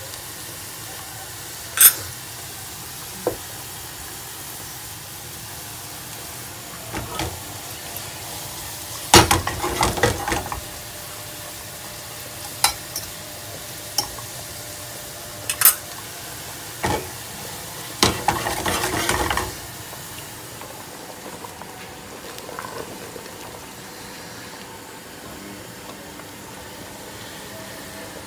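Sliced onions sizzling as they fry golden in oil in a metal saucepan. A spatula scrapes and clicks against the pan in scattered sharp knocks and two short spells of brisk stirring. After about two-thirds of the way through the stirring stops, leaving a quieter steady hiss.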